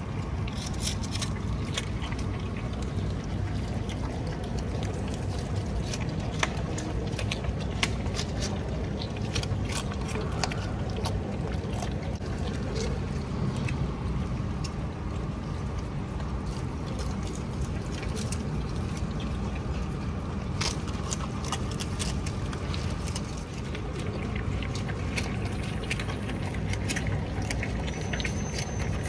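Capybaras chewing and crunching shredded carrot and purple cabbage close by, many small crisp clicks and snaps, over a steady low rumble.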